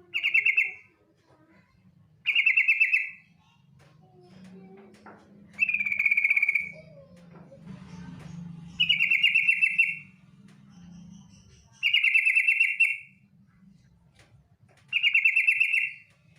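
Female yellow-vented bulbul (trucukan) giving its rapid chattering ngetir trill six times, each burst about a second long and about three seconds apart. These are the calls used as a lure to set other trucukan singing.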